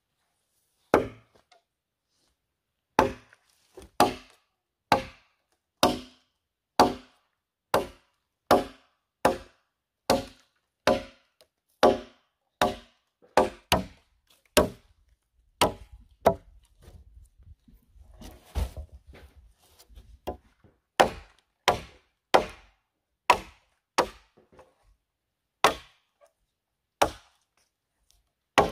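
Machete chopping into a felled log, each blow a sharp knock of the blade biting the wood, about one a second. There is a break of a few seconds in the middle before the chopping resumes.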